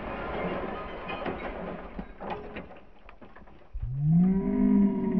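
Slowed-down slow-motion audio of a CRT television screen being shot through: a hiss of scattering glass and debris with a few clicks. From about four seconds in comes a deep, drawn-out voice that rises and falls, a shout played back at low speed.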